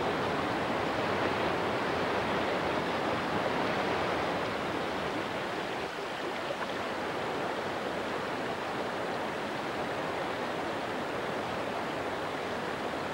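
Fast-flowing river water rushing through broken rapids, a steady noise of running water, slightly quieter about six seconds in.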